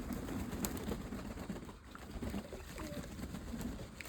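Domestic pigeons cooing, many low overlapping coos, with a few faint clicks.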